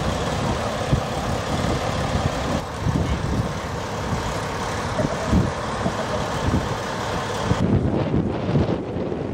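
Emergency vehicles' engines idling steadily, with wind buffeting the microphone in low rumbling gusts. Near the end the higher hiss drops away, leaving mostly wind rumble.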